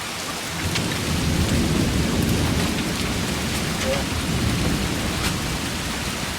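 Heavy hail and rain pouring down steadily, with a few sharp ticks of hailstones striking. A long low rumble of thunder rolls in about half a second in and slowly fades.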